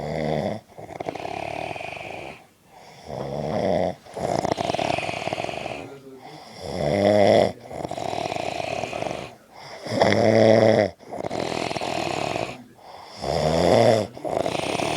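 A man snoring in deep sleep, in a steady cycle about every three and a half seconds: a loud snore with a clear, wavering pitch, then a quieter breathy stretch, then a brief pause before the next breath.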